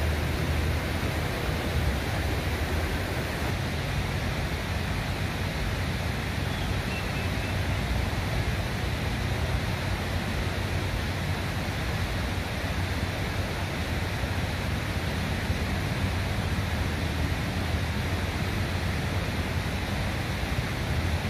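Steady rushing of a fast-flowing river, an even noise with a low rumble underneath.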